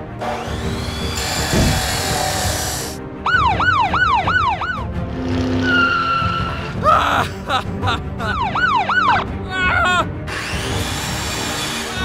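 Police siren sound effect wailing rapidly up and down, about two or three cycles a second, in two spells: one about 3 seconds in and one about 7 seconds in. It plays over background music, after a couple of seconds of loud rushing noise.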